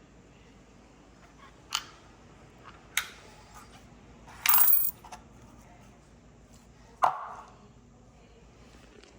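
Workshop handling noises from a dryer being taken apart. There are two sharp clicks, then a brief scrape about halfway through, then a heavier knock near the end that rings for a moment.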